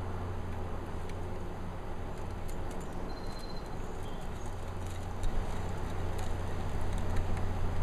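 Hand brace turning a spiral auger bit down into a timber beam: irregular crunching clicks of the bit cutting through the wood, busier and louder in the second half, over a steady low hum.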